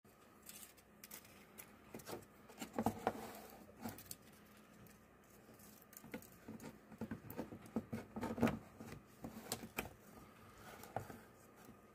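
Hands handling and fitting frame pieces and a display panel on a wooden tabletop: irregular light clicks, taps and scrapes, with a couple of louder knocks about three seconds in and past the middle.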